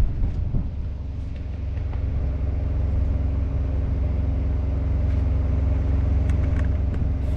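Engine idling steadily: a low, even rumble with a steady hum over it and a few faint clicks near the end.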